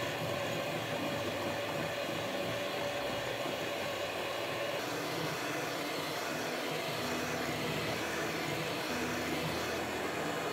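Electric hand mixer running steadily with twin wire beaters, whisking a butter-cookie batter in a glass bowl. The motor's whine changes tone about halfway through.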